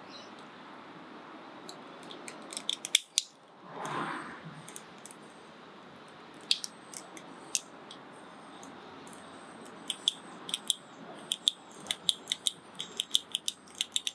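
Small sharp plastic clicks from handling a car's power window switch, coming in scattered groups with a quick run of clicks near the end, over a steady hiss. A short rush of noise about four seconds in.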